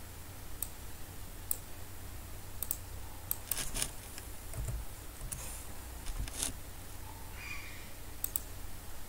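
Computer keyboard keys and mouse buttons clicking at an irregular pace, about a dozen sharp taps, some in quick pairs or short runs, over a steady low hum.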